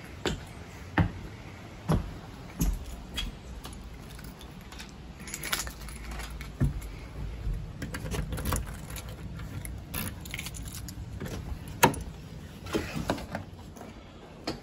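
Footsteps on a porch about once a second, then a ring of keys jangling as a key is put into a front-door deadbolt and turned, with sharp metallic clicks from the lock.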